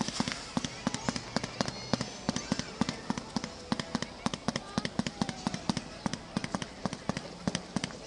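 Aerial fireworks crackling: a dense, irregular run of sharp pops and cracks, several a second.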